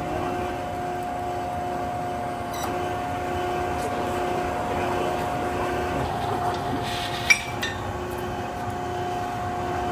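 Hydraulic pump of a 100-ton forging press running with a steady whine and a pulsing lower note while the press squeezes a hot steel cylinder. A single sharp metallic clink about seven seconds in.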